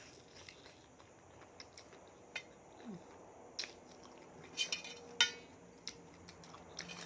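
Utensils clinking and scraping against a dish in short, scattered knocks, with a cluster of them about four and a half to five seconds in, amid eating.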